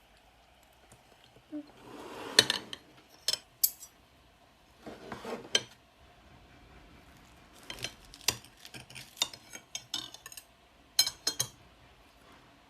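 Kitchenware clinking and knocking: utensils and dishes set down and handled, in irregular clusters, with two short scraping stretches.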